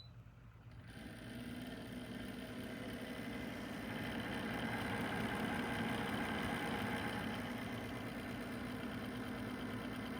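Ceramic space heater's fan starting up and running with a steady whir that grows louder over the first few seconds, then holds steady.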